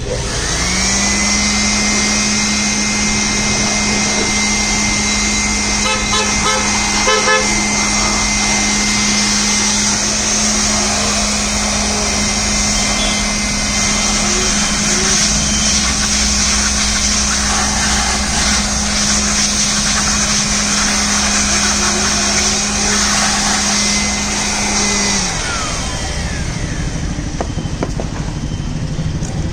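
Handheld electric air blower switched on, its motor whining up to speed within a second, then running steadily with a rush of air as it blows dust out of an open desktop PC cabinet. A few faint ticks come about six to seven seconds in, and the motor winds down about 25 seconds in.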